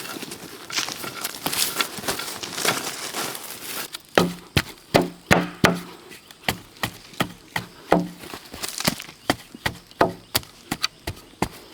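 A blade chopping wood in the bushcraft work: rough crackling and splintering for the first few seconds, then a steady run of sharp chops, about two or three a second, some with a short, low, hollow ring.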